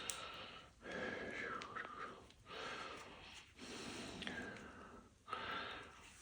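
A person breathing audibly close to the microphone: five hissy breaths in a row, each about a second long, with short pauses between them.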